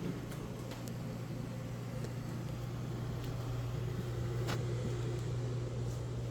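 A steady low hum that grows slightly louder about halfway through, with a few light clicks or taps.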